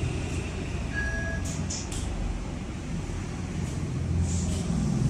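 Low steady rumble of road traffic, swelling about four seconds in, with a short faint beep about a second in.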